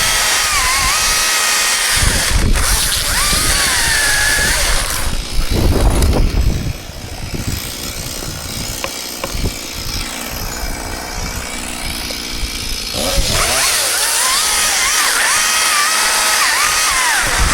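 Chainsaw running under load through a cut, its engine pitch dipping and recovering as it bogs in the wood. About five seconds in there is a louder, heavier burst, then the saw drops to a lower, quieter level for several seconds before running hard again near the end.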